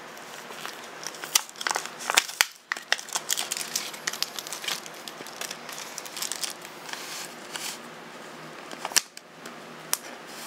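Plastic trading-card blister packs and their card backings being handled and pried open: irregular crinkling and crackling with many sharp clicks.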